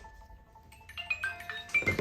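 Mobile phone ringtone: a melody of short, marimba-like notes that pauses briefly, then starts again about a second in, with a low thump near the end.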